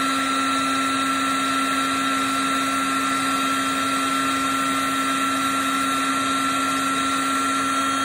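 Electric heat gun running steadily, a constant motor whine over rushing air, blowing hot air onto an exhaust manifold's heat riser spring.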